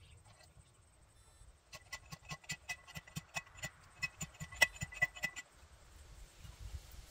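Manual T-post driver pounding a steel T-post into the ground: a quick run of metallic clanks with a ringing edge, starting about two seconds in and stopping a little after five seconds.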